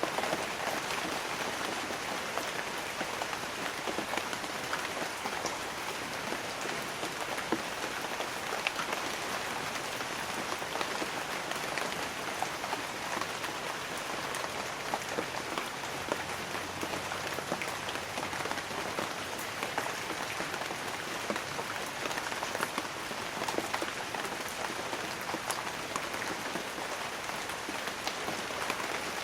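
Light rain falling steadily on banana leaves, with many separate drop strikes heard over an even hiss of rain.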